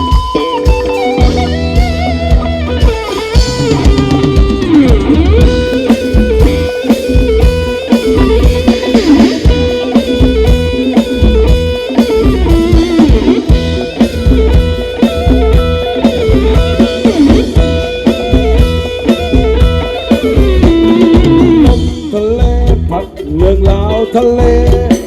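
Band music without singing: a melody over a steady drum beat.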